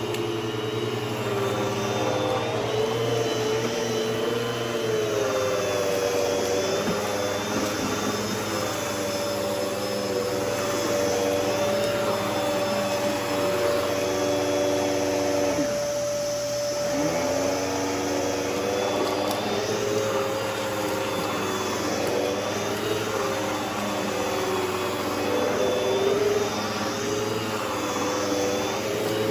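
Bissell canister vacuum cleaner running steadily, its motor whine wavering slightly in pitch; about halfway through, the pitch sags for a couple of seconds and then comes back up.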